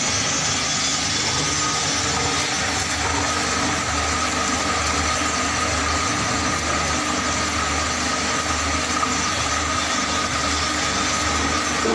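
Plastic color mixer running: its motor turns the stirring blade in the mixing drum, giving a loud, steady dense noise with a constant whine and a low hum underneath.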